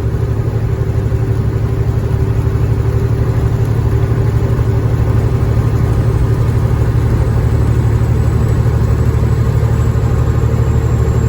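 Cat 3406E inline-six diesel of a Freightliner FLD120 semi-truck heard from inside the cab, a steady low drone while cruising at a constant speed.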